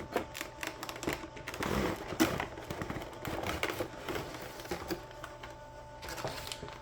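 Hard plastic packaging being handled: an irregular run of clicks, taps and crinkles, busiest in the first few seconds and thinning out toward the end, over a faint steady hum.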